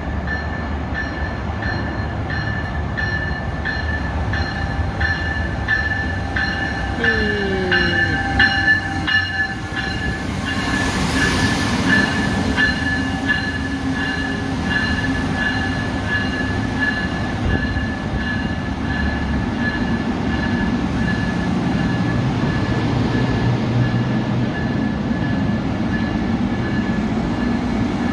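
Amtrak Northeast Regional train hauled by an electric locomotive passing close by at speed. A high ringing tone pulses steadily in the first half, and a tone drops in pitch as the locomotive goes by about seven seconds in. A rush of noise follows, then the steady rumble of the coaches' wheels on the rails.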